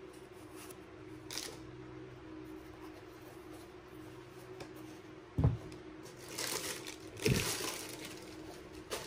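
Tissue paper crinkling and rustling in a cardboard shoebox as a sneaker is handled and laid into it, with two soft thumps, about five and a half and seven seconds in, that are the loudest sounds.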